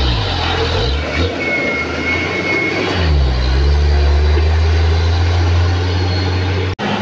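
Diesel tanker truck engine running hard as it drives past, its low note dipping about three seconds in and then holding steady, with a thin high whistle over it at first. The sound cuts out briefly near the end.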